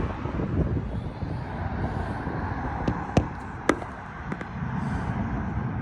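Wind buffeting the microphone outdoors, a fluttering low rumble, with two sharp clicks half a second apart a little after three seconds in.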